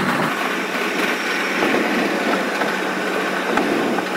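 Subway train running, heard from inside the passenger car: a steady rumble and hiss with a constant low hum.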